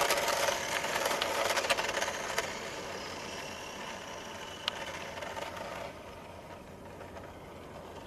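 Small electric motor and gears of a toy remote-control race car whirring as it drives off over asphalt, loudest at first and fading away over the next several seconds, with a few light clicks.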